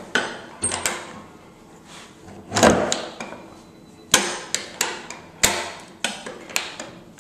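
Metal slide-bolt latch on a restroom stall door being worked back and forth, giving a string of sharp metallic clacks, with a longer, louder rattle of the bolt and door near the middle.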